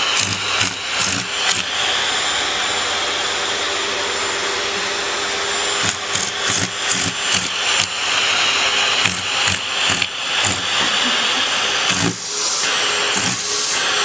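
Vacuum cleaner running with its hose drawing air, its sound wavering and pulsing irregularly, steadier for a few seconds near the start.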